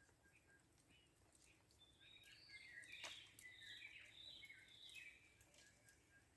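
Faint birdsong: a flurry of quick high chirps and short trills from about two seconds in until past five seconds, over a quiet background with a faint, evenly repeated pip.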